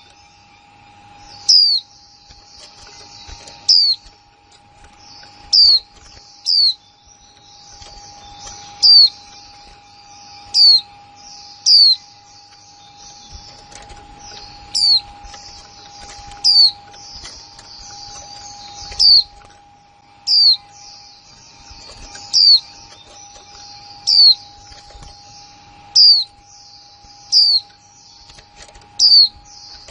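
Female white-eye calling: loud, sharp, high single notes that sweep quickly down, repeated about every one and a half to two seconds, with softer twittering between them. It is the kind of recording played to stimulate male white-eyes to sing. A faint steady hum runs underneath.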